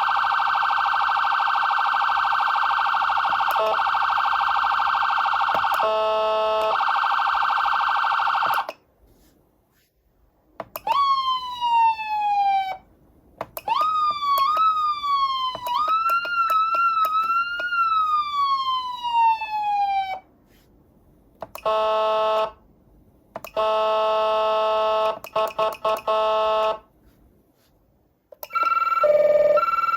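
Whelen Cencom Sapphire electronic siren sounding a series of different tones with short pauses between them. It opens with a fast warble, followed in the middle by wail-like sweeps that rise quickly and fall slowly. Then comes a pulsing multi-note horn-like tone, and near the end a two-note hi-lo alternation.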